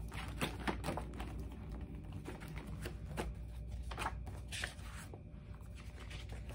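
Paper pages of a spiral-bound sketchbook being handled and turned, a series of short, quiet rustles and light clicks.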